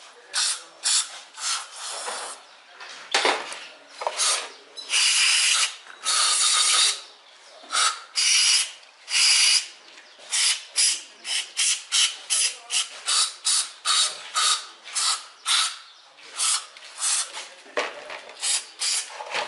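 A Kia Picanto throttle body being cleaned with carburettor cleaner: a long run of short hissing, scrubbing strokes, a few longer ones in the first half and about two a second in the second half.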